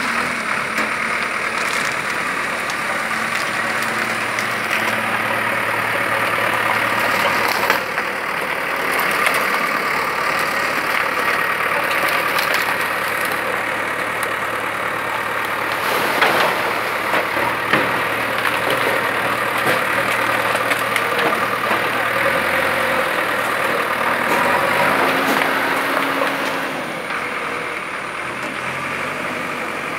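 JCB backhoe loader's diesel engine running steadily as the loader works, with a few short knocks from its bucket and arm.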